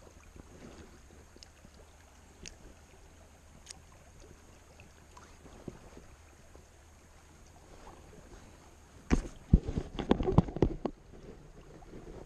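Faint river ambience with a few light clicks, then about nine seconds in a brief cluster of loud knocks and thumps lasting under two seconds: handling noise as a caught chub is unhooked and held in the hand.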